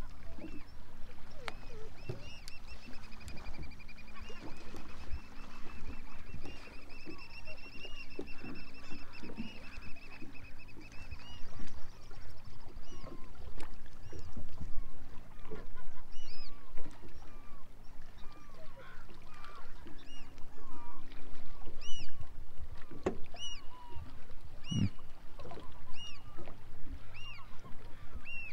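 Black oystercatcher calling: a long, wavering piping trill lasting about ten seconds, then a run of sharp whistled 'wheep' notes about one a second through the second half.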